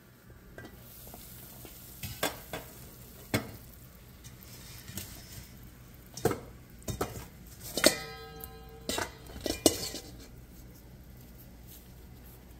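Metal cookware being handled: an aluminium pot lid and a steel mixing bowl clank and knock several times, one strike ringing out for about a second near the middle. Under it runs a steady low background.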